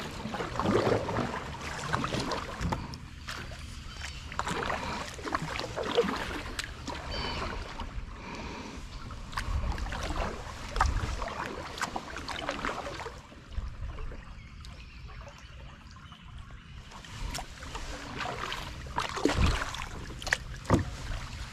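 Kayak being paddled through calm water: a double-bladed paddle dipping and splashing at an irregular pace, with drips and light knocks between strokes.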